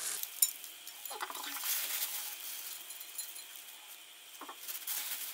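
Quiet handling of a plate: a light clink about half a second in as chopped frozen green onion is scattered by hand over boiled potato pieces, with faint short pitched cries in the background.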